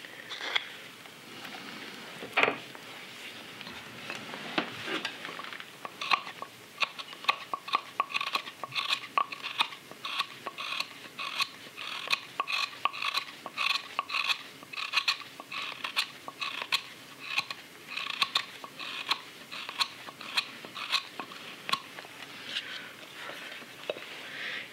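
Hook knife scooping out the bowl of a green sycamore belt cup: a quick run of short slicing cuts, a few a second, each a brief scrape of steel through wet wood. It opens with a few scattered cuts and one sharp click about two seconds in.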